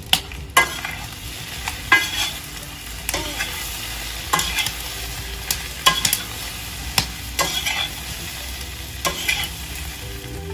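Potatoes frying in oil in a cast-iron kazan, sizzling steadily while a metal skimmer turns them, with sharp scrapes and knocks against the pot every second or so.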